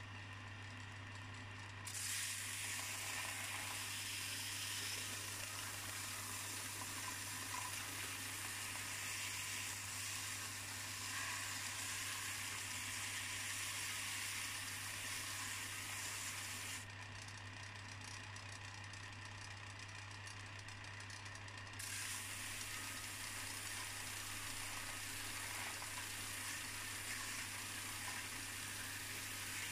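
Belt sander running with a steady motor hum while an iron bar is pressed flat against the abrasive belt, giving a grinding hiss as it strips black mill scale from the metal. The grinding starts about two seconds in, eases off for about five seconds past the middle, then resumes.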